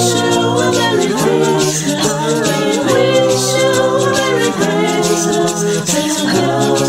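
Several voices singing a song a cappella in close harmony.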